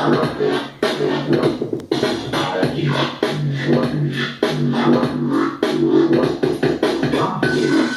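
Electronic music with a heavy bass line and choppy, glitchy scratch-like edits.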